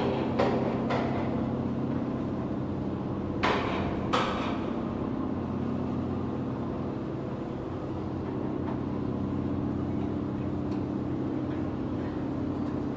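Steady machinery drone from a ship repair yard, a low hum with several pitches in it, with sharp metal clangs that ring briefly: three close together at the start and two more about three and a half and four seconds in.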